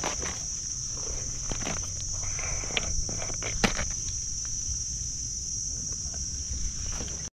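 Insects droning in a steady high-pitched buzz, with scattered footsteps and snaps of twigs and leaves as someone moves through mangrove undergrowth; one sharper snap about three and a half seconds in.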